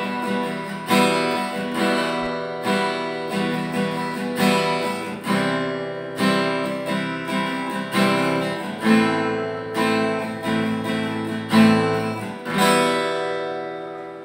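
Yamaha F310 steel-string acoustic guitar strummed in full chords, about one stroke a second. Near the end the last chord is left ringing and fades away.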